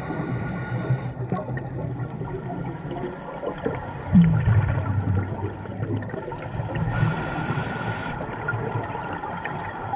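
Scuba diver breathing underwater through a regulator: a short hiss of inhaling near the start and again about seven seconds in, and a louder rush of exhaled bubbles gurgling from about four seconds in.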